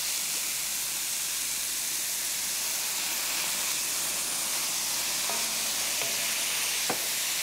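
Strips of vegetables sizzling steadily in a hot wok as they are stir-fried, with one sharp click near the end.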